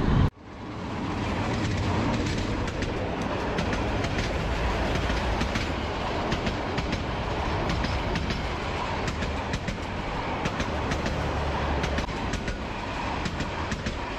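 The Haor Express intercity train passing close by on the adjacent track: its coaches roll past steadily, with the wheels clicking rapidly over the rail joints.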